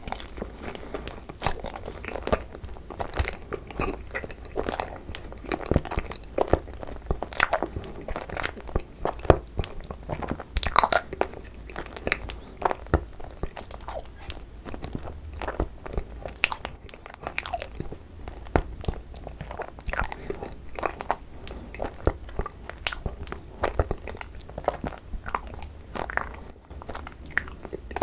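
Close-miked chewing and biting of Korean rice cake (tteok) filled with cream cheese, with irregular mouth clicks and smacks several times a second.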